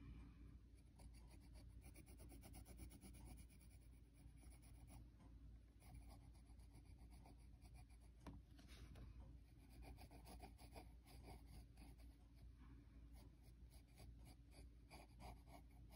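Faint scratching of a pencil on sketchbook paper: quick, repeated short strokes, with brief pauses between bursts.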